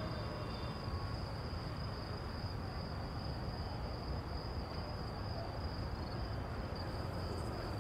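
Crickets chirring in one steady, continuous high trill over a low background hiss, with the last of the background music fading out about a second in.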